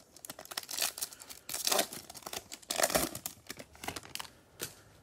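The wrapper of a Bowman Chrome baseball card pack being torn open and crinkled in the hands: a run of irregular crackling and tearing noises that thins out near the end.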